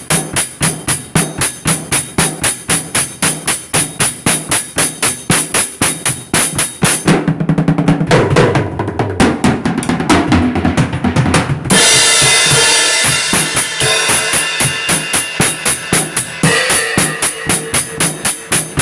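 Drum beat with fast, even hits at about four a second. About seven seconds in the high hits drop out for a few seconds under a lower pitched passage. They return at about twelve seconds with a bright, sustained crash-like wash over the beat.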